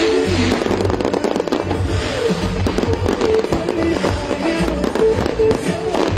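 Fireworks bursting in quick succession, deep booms mixed with crackling, with music playing through it.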